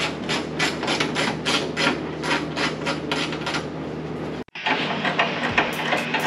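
Hand ratchet wrench clicking in quick regular strokes, about four a second, while a bolt is loosened. It breaks off about four and a half seconds in, and scattered clicks and knocks follow.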